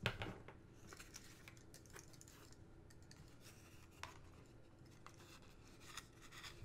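Faint handling noise: a cardboard face with glued craft-wood squares being picked up and turned over on a wooden table, with light scrapes, rubbing and small taps. A sharper knock comes right at the start, with smaller taps about four and six seconds in.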